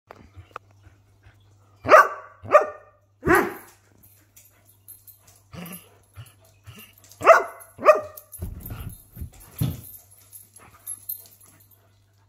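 Greyhound barking for attention: a pair of sharp barks about two seconds in, then a longer, deeper one, quieter grumbling sounds, another pair of sharp barks about seven seconds in, and one more bark a couple of seconds later.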